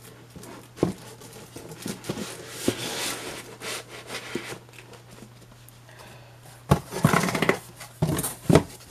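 Comic books being slid back into a cardboard comic box, with small knocks and rustles of cardboard and paper. Near the end the box's cardboard lid is pushed on, with a louder run of scraping and thumps.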